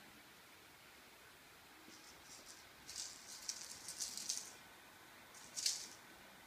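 A small cat toy being batted by a kitten, rattling and skittering over hard floor tiles in a run of quick bursts, then one sharper clatter near the end.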